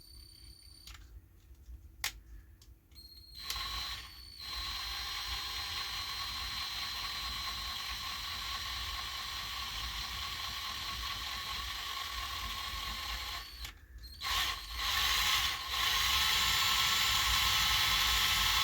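Small electric drill running, boring a hole in a cuckoo clock bellows. It runs steadily for about ten seconds, stops, gives a couple of short bursts, then runs steadily again.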